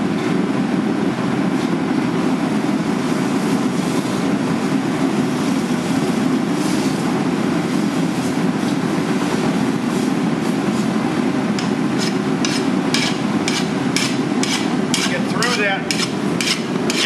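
Steady roar of the forge burner. A brief hiss about six or seven seconds in as the hot steel bar is quenched in water. From about eleven seconds in, quick rasping file strokes, about two to three a second, skating over the quenched steel: the sign that it took up enough carbon to harden.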